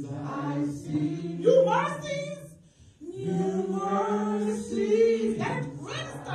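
A woman singing slowly into a microphone, unaccompanied, holding long notes with slow bends in pitch and a short break for breath about two and a half seconds in.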